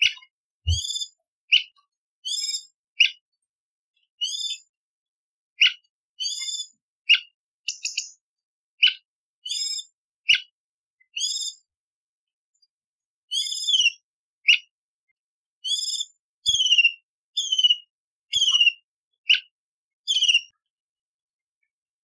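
Orange-bellied leafbird (cucak cungkok) singing a string of short, sharp, varied whistled phrases, about one a second with brief gaps between, several of the later ones quick falling slurs.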